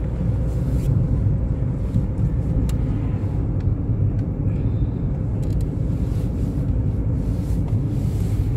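Car driving at speed, heard from inside the cabin: a steady low rumble of engine and road noise.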